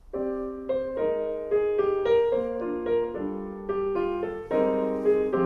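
Recorded piano music, a song's intro of gently changing chords and melody notes, played back over Yamaha NS-3000 bookshelf loudspeakers in a listening room.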